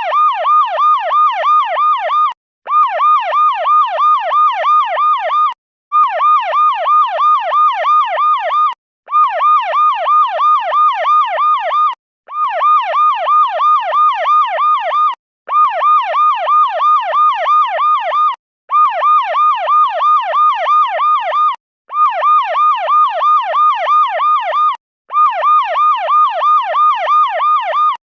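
Electronic police siren sounding a rapid up-and-down warble, about three sweeps a second. It plays in bursts of about three seconds separated by brief breaks, looped as a ringtone.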